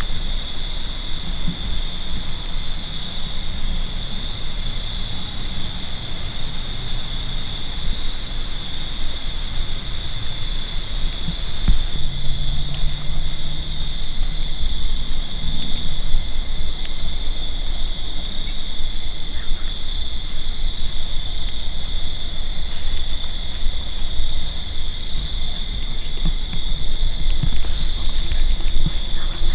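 Steady high-pitched insect chorus of crickets calling without a break over a low rumble, with a brief low hum about halfway through.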